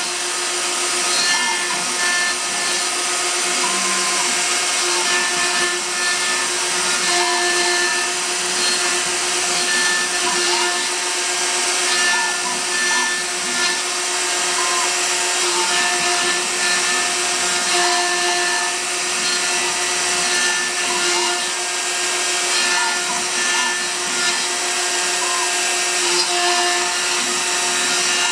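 A small hobby CNC router's spindle runs steadily as it carves. Short rising and falling chirps come and go about every second over the steady whine.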